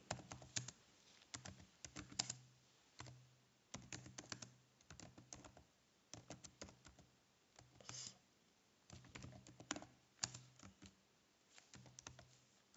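Faint typing on a computer keyboard: irregular clusters of quick keystrokes separated by short pauses.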